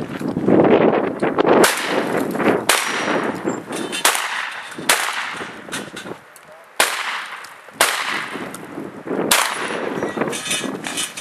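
A shotgun is fired six times in a string, one to two seconds between shots, each a sharp report.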